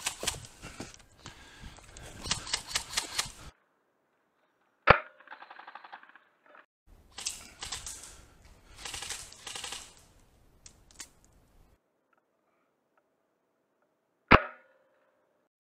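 Two single shots from an airsoft sniper rifle, one about 5 s in and one near the end, each a sharp crack with a short ringing tail. Before them comes a stretch of dense crunching, like footsteps in dry leaves, and between them some rustling.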